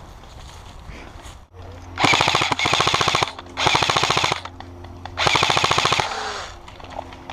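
Airsoft electric rifle firing on full auto: three bursts of rapid, evenly spaced shots about a second apart, the first the longest, with the gearbox's hum under each burst.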